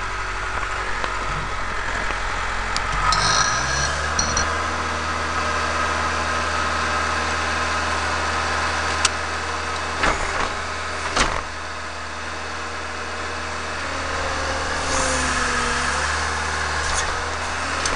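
Farm tractor engine running steadily under load, its note shifting about three seconds in, with a brief high squeal there and a few sharp clanks near the middle.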